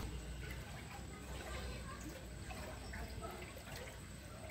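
Floodwater faintly lapping and trickling.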